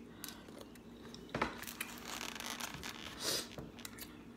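Faint eating sounds: quiet chewing and a foam takeout clamshell being handled, with a few short rustling scrapes.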